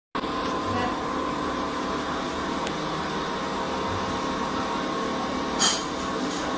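Steady whine of a small electric motor, with a brief sharp, hissing noise about five and a half seconds in.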